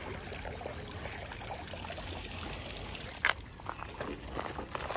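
Water pouring and dripping off a bicycle wheel as it is hauled up out of a river on a magnet-fishing rope. About three seconds in comes a sharp knock, then a few lighter clatters, as the wheel comes up over the bank's metal railing.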